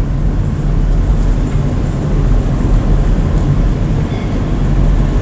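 Car driving: a steady low rumble of engine and road noise heard from inside the cabin.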